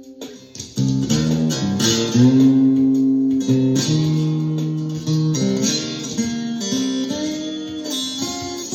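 Ovation Koa thinline acoustic-electric guitar in open C tuning, played with a slide. A loud chord enters about a second in, and sustained notes and chords ring on, several of them sliding up in pitch.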